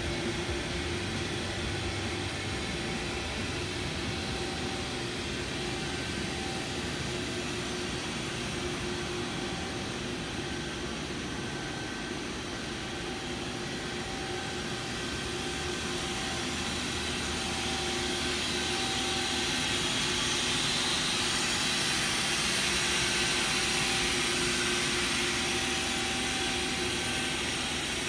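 Steady machine hum and airy hiss with a few faint constant tones, from a powered-up Mazak VTC-200/50 vertical machining center standing idle; the hiss grows louder for a while about two-thirds of the way through.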